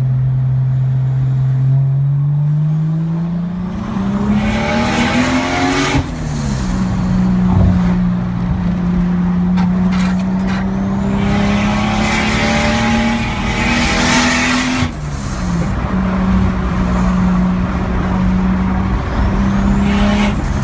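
Car engine heard from inside the cabin while driving. It climbs in pitch as the car accelerates, drops sharply as it shifts up a gear about six seconds in, then holds a steady pitch with another shift about halfway through.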